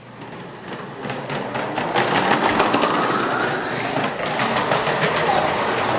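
Hard plastic wheels of a toddler's ride-on toy car clattering over a tile floor as it is pushed along fast, a rapid rattle of about ten clicks a second that builds up about a second in.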